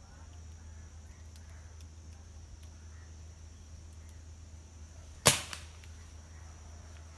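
A single sharp shot from a tranquilizer dart gun, about five seconds in, with a short ringing tail and a faint click just after, over a steady low hum.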